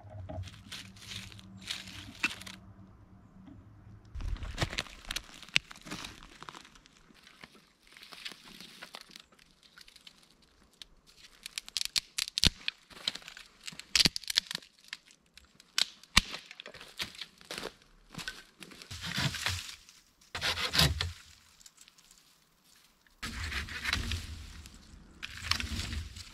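Dry twigs and forest litter crackling and snapping in irregular bursts, with rustling in between and several longer, louder spells of crunching toward the end.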